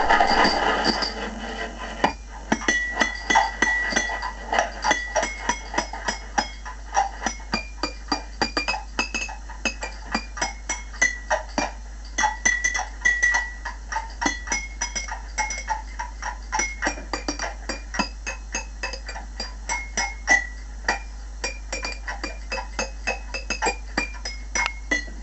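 Wine bottles and jam jars struck in quick succession as a home-made glass orchestra, ringing out a medley of nursery-rhyme tunes in short clinking notes. A steady low hum runs underneath.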